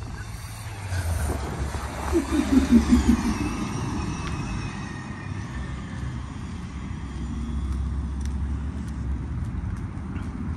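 A motor vehicle's engine running close by: a low, steady sound that builds about a second in, is loudest about two to three seconds in, and fades near the end.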